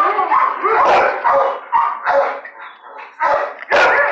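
Shelter dogs barking repeatedly, a run of short barks and yips with a loud burst near the end.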